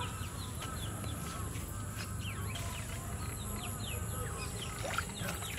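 Birds chirping with many short falling calls, over a steady high-pitched insect drone and a low rumble.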